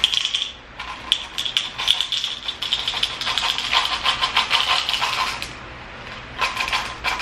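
Tic Tac mints shaken out of their plastic box into a plastic pill bottle: a dense run of small clicks and rattles, a short pause, then another brief run near the end.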